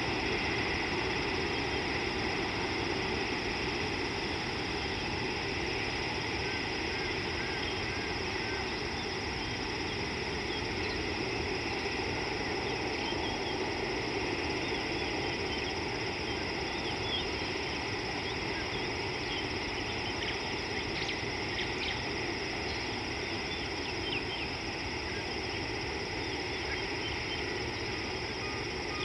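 Steady outdoor wildlife ambience: a constant insect drone and hiss, with faint scattered bird chirps through the middle.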